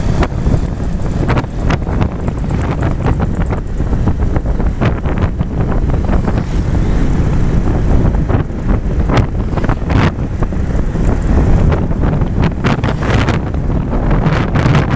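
Heavy wind buffeting the microphone of a moving motorcycle, in uneven gusts, with a steady low rumble of engine and road noise beneath it.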